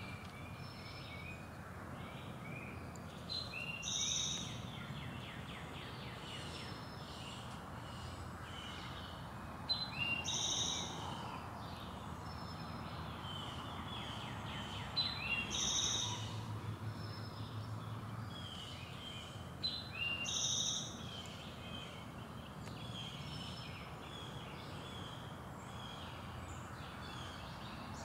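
Birdsong: several birds chirping, one song phrase repeating about every five or six seconds, over steady background noise.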